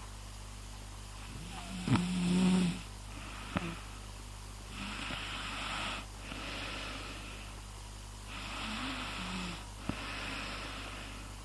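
Snoring: a loud, pitched snore about two seconds in, then four breathy snores in and out with no pitch to them. Two short clicks fall between them.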